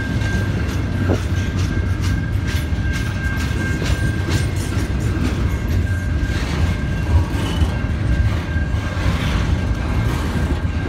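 Double-stack container freight cars rolling past at close range: a steady low rumble with irregular clicks of wheels over the rail joints, and a thin steady high whine running through it.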